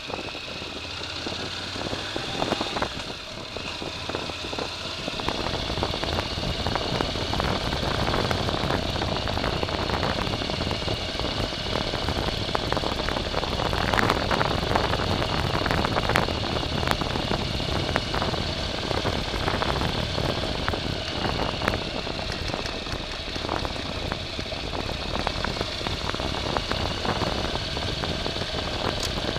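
A vehicle engine running steadily off-road, getting stronger in the low end about five seconds in, with scattered knocks and rattles from the ride.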